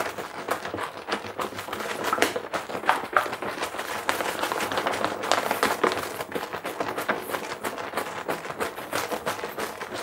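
Beer wort sloshing and splashing inside a plastic PET fermenter jug shaken hard by hand, a quick, continuous churning of liquid against the thin walls. The shaking aerates the wort, dissolving oxygen so the yeast can grow before pitching.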